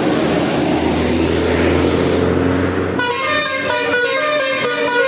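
A steady rush of vehicle noise, then about three seconds in an Indonesian 'telolet' basuri bus horn starts playing a tune, its several tones sounding together and stepping from note to note.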